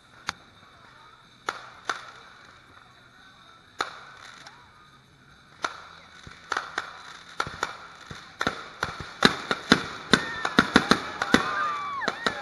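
Fireworks going off: a few sharp, widely spaced bangs at first, building from about halfway through into a rapid string of cracks and pops.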